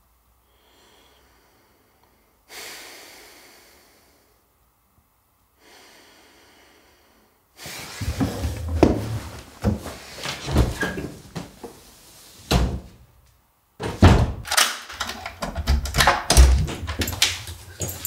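A few faint scrapes, then from about eight seconds in a busy run of knocks, thumps and clatter from someone moving about a small room and handling things, with a door opening and shutting.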